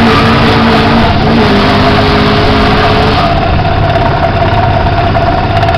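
Car engine running hard during a burnout with the rear tyres spinning, loud, with a dense hiss over a steady engine note. About three seconds in, the hiss drops away and the engine settles to a different steady pitch as the car pulls off.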